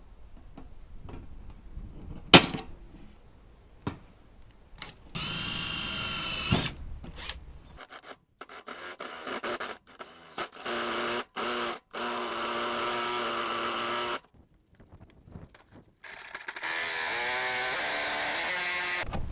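Handheld electric power tool running in several short bursts, its motor whine shifting in pitch as the load changes, with a sharp click near the start.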